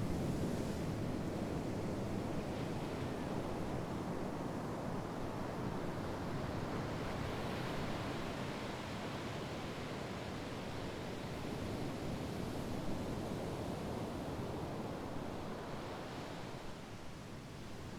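Sea waves washing onto the shore: a continuous rush of surf that swells and eases, dropping back slightly near the end.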